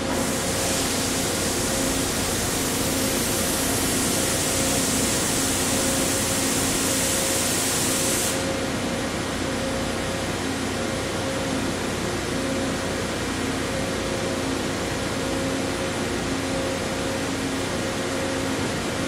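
FERMAT FGU RT CNC universal milling machine running through an automatic pallet change: a loud high hiss for about the first eight seconds, which then cuts off suddenly, over a steady machine hum with a faint tone that pulses on and off.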